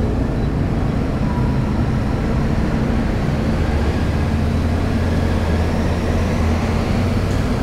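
Yamaha Ténéré 700's parallel-twin engine running at low speed as the motorcycle rides along a ferry's vehicle deck, a steady low drone that grows fuller from about three seconds in.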